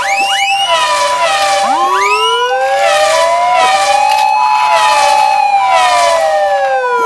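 Several emergency-vehicle sirens sounding at once: a Japanese-style ambulance two-tone siren alternating steadily between a high and a low note about every 0.6 s, layered with a slow wailing siren that rises and falls and a few short rising whoops.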